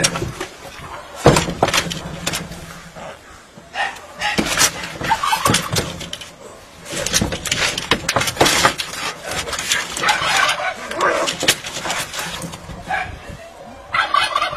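Two cats fighting, yowling and hissing in loud, irregular bursts.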